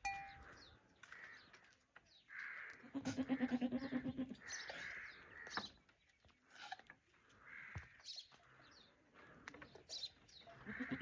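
A goat bleats once, a long wavering call about three seconds in, while small birds chirp.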